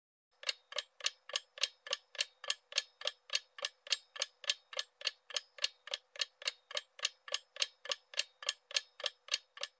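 Ticking-clock sound effect for a countdown timer: even, sharp ticks at about three and a half a second, starting about half a second in.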